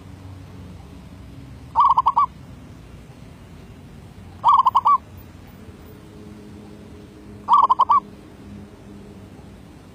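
Zebra dove (merbuk) cooing: three short staccato calls, each a quick run of about five notes lasting half a second, spaced about two and a half to three seconds apart.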